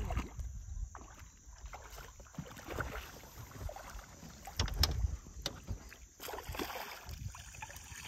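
Hooked sheepshead thrashing and splashing at the surface beside a small aluminum boat, with water lapping at the hull and a few knocks, the loudest about five seconds in.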